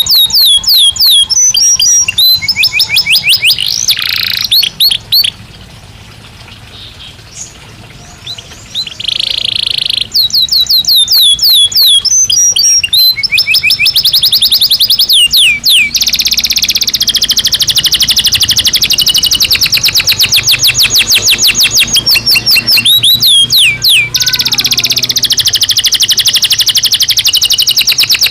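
Domestic canary of the Belgian type singing: fast trills of repeated high sweeping notes, with a pause of a few seconds early in the song, then a long rapid trill held for several seconds.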